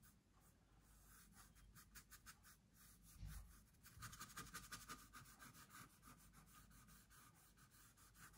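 Faint, quick strokes of an oil-paint brush on a painting canvas. The strokes come sparsely at first, then as a dense rapid series from about four seconds in.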